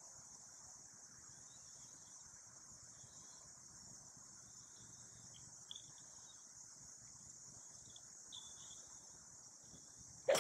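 A steady, high insect chorus throughout, then near the end a single sharp crack of a 4-iron striking a golf ball off the tee, a strike that didn't sound the best.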